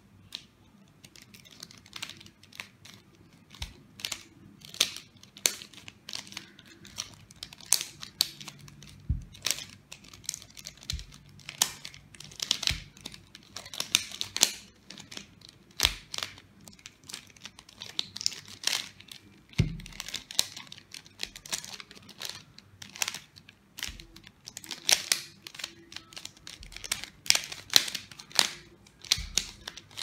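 Gold 3x3 mirror cube being speed-solved by hand: its plastic layers turn fast in rapid, irregular clicks and clacks, with a few dull knocks mixed in.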